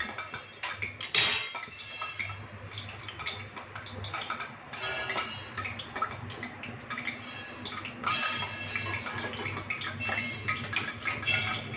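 Steel kitchenware clinking and clattering: a slotted spoon and dough pieces knocking on a steel plate beside a kadhai, with one louder clatter about a second in. A steady low hum runs underneath.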